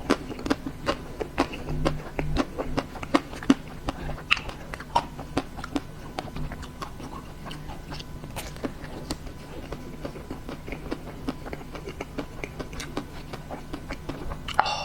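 Close-miked biting and chewing of a chocolate-coated ice cream bar, the thick crisp chocolate shell cracking in many sharp little snaps, busiest in the first few seconds.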